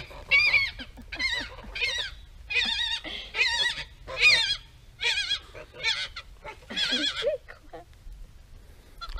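A flock of white domestic geese honking: a string of separate honks, about one a second, each wavering in pitch.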